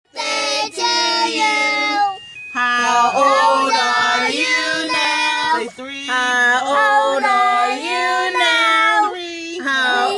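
Several voices, a child's among them, singing a birthday song in long held notes, phrase after phrase with short breaks.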